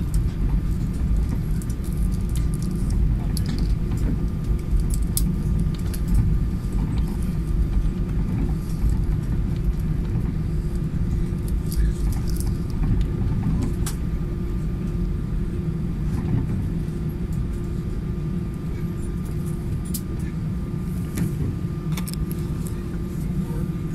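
Jet airliner cabin noise as the plane moves on the ground: a steady low rumble of engines and rolling, with a faint steady tone above it and scattered light rattles and clicks.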